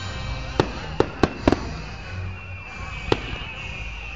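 Aerial fireworks going off: five sharp bangs, four in quick succession in the first second and a half and one more about three seconds in, over steady background noise.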